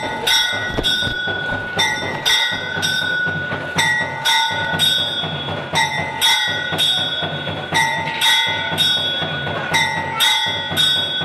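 Bell-like metallic ringing struck over and over in a steady rhythm, about two strikes a second with short pauses, each strike leaving the same set of held tones over a low rumble.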